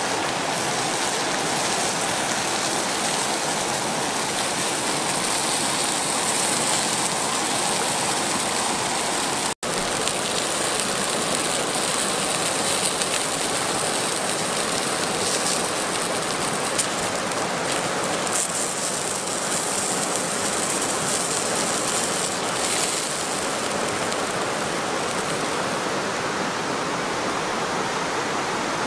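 Fast-flowing, swollen river water rushing steadily, with a momentary break about a third of the way in.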